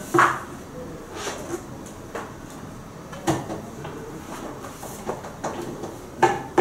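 A series of short, sharp knocks and clicks, roughly one a second. The loudest come just after the start, about halfway through and near the end.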